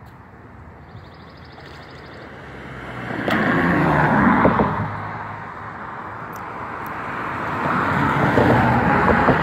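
Two cars passing by on the road, one after the other: each a rush of tyre and engine noise that swells and fades, the first about three seconds in and the second near the end.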